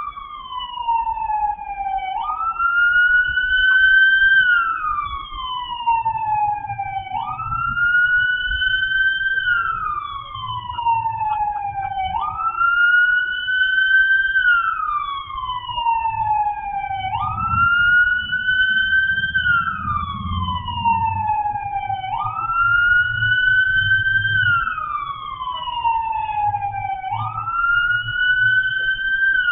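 Police car siren wailing, its pitch jumping up and then falling slowly, about once every five seconds.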